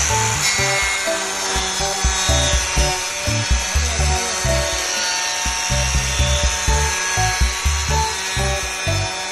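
XINKAI T3D rail-guided electric tile cutter running through a tile with water cooling, a steady high grinding hiss as the blade is pushed along the rail. Background music with a steady beat plays under it.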